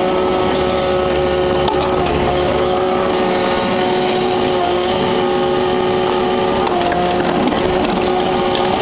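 Kubota KX61-3 mini excavator's diesel engine running steadily, with a high steady whine, while the machine works broken concrete: a few short knocks and cracking of rubble over the engine.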